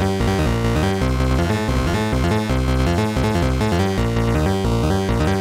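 Blue Lantern Dwarf Star modular synthesizer playing a quick electronic melody over a low bass, the notes changing several times a second, sequenced from a MIDI-to-CV converter.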